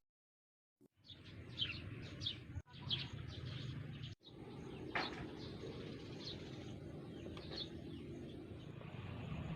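Birds chirping in short repeated calls over a steady low outdoor background hum. The sound starts about a second in and drops out briefly twice.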